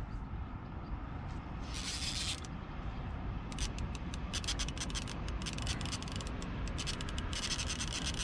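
Fishing reel being worked by hand to free braided line that has dug into the spool and no longer runs out through the drag: a rasp about two seconds in, then a run of quick clicks and scrapes from halfway on, over a steady low rumble.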